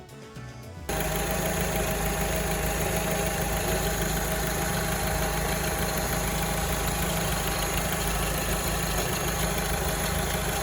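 Alfa Romeo 159 engine idling in the engine bay with a steady rattling, the abnormal noise that the owner fears is a serious fault. It starts abruptly about a second in and runs on evenly.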